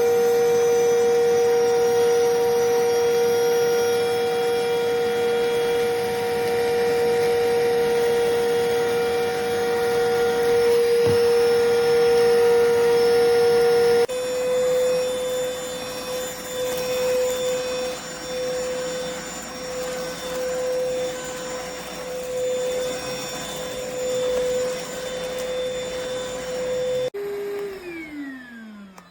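iwoly C150 cordless vacuum cleaner motor running with a steady high whine. About halfway through the pitch sits a little higher and the level starts rising and falling. Near the end the motor winds down with a falling pitch, then spins back up.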